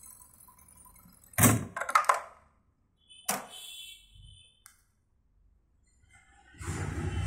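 Reece S105 buttonhole machine standing still: a few sharp metal clunks and clicks, the loudest about a second and a half in, one followed by a short ringing. A rougher steady noise with a low hum starts near the end.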